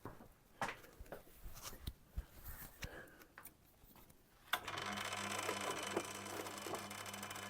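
A few faint knocks and clicks of handling, then about four and a half seconds in a Tormek T8 wet sharpening machine is switched on and runs with a steady, slightly pulsing motor hum.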